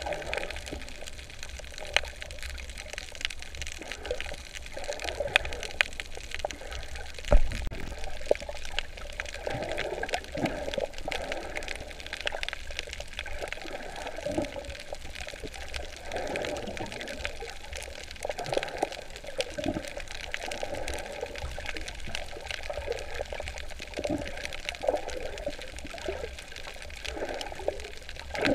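Sea water sloshing and bubbling around a camera filming underwater, with many small clicks and one louder knock about seven seconds in.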